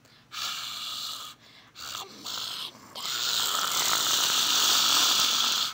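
A person hissing through the teeth, in imitation of a snake or cat: a hiss, two short ones, then one long loud hiss lasting over two seconds that cuts off suddenly.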